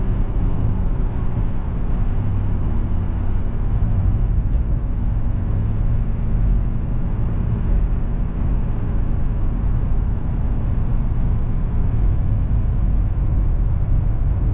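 Steady engine and road noise from inside a moving car, mostly low rumble.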